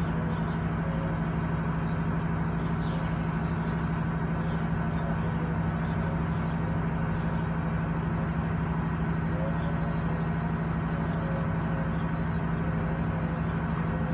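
A steady low mechanical hum with a constant drone that does not change.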